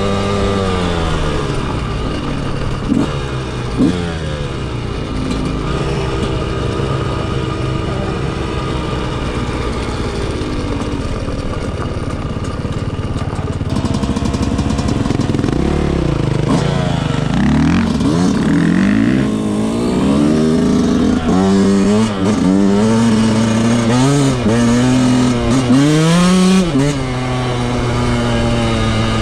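Yamaha YZ125 two-stroke single-cylinder motocross engine being ridden, its pitch rising and falling with the throttle and gear changes, with quick repeated revs in the second half. Two short knocks come a few seconds in.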